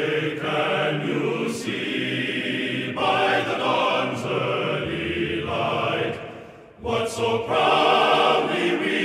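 A choir singing sustained chords that change every second or two, fading down briefly about two-thirds of the way through before swelling back.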